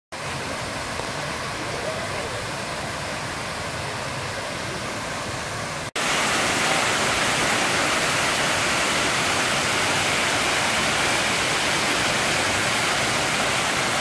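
Fountain water rushing and splashing steadily as sheets of water pour down a wall into a pool. It becomes louder and closer about six seconds in.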